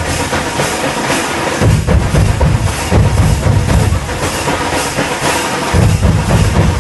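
A Purulia dhamsa-madol drum ensemble playing a fast rhythm: large dhamsa kettle drums beaten with sticks under rapid strokes on madol barrel drums. The deep dhamsa booming drops out twice, for about the first second and a half and again for about a second and a half past the middle, leaving the quicker strokes.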